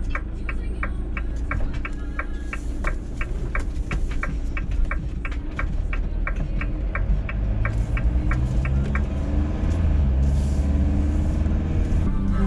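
Camper van engine and road rumble heard from inside the cab, with a turn-signal indicator ticking about four times a second until about nine seconds in. The engine gets louder from about eight seconds in.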